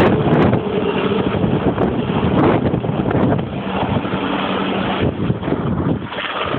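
Rescue helicopter's rotor and turbine engine as it lifts off and flies away, a loud steady noise that eases a little as it climbs away, with its downwash buffeting the microphone.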